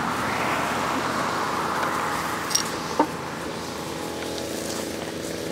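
Steady road traffic noise, with two short sharp knocks about two and a half and three seconds in.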